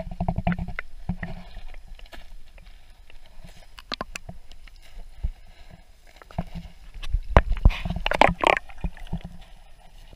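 Muffled sound of water from a camera held underwater in a hot spring pool: low thumps and scattered clicks of water moving around the camera, busier and louder about seven to eight and a half seconds in.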